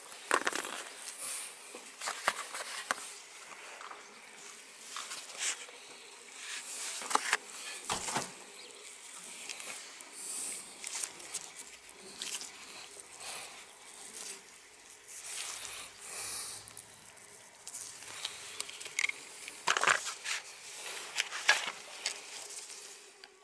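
Hands in nitrile gloves working a CV joint boot and its clamps: scattered clicks, rustles and light metal knocks as the boot clamp is crimped with clamp pliers, over a faint steady hum.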